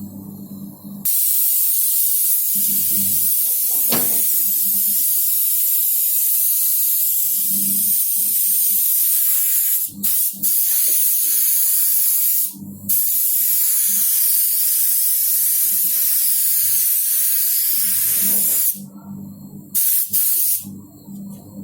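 Paint being sprayed onto a car's bodywork: a long, loud hiss broken twice briefly in the middle, then a short final burst near the end.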